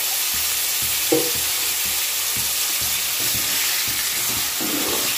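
Raw chicken pieces sizzling in hot oil in a kadai. A metal spoon stirs them, scraping and knocking against the pan, with one louder knock about a second in.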